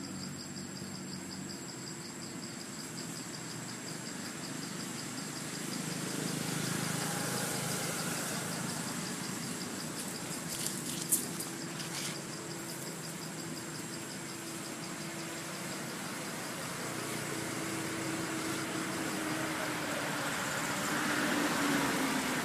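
Forest ambience: insects keep up a steady, rapidly pulsing high trill over a low engine hum. A few sharp clicks come about halfway through.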